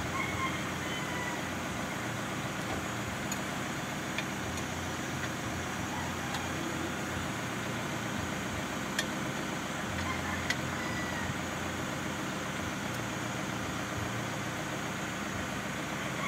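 Steady drone of a running diesel engine, with a few sharp clicks, about four in all, scattered through it.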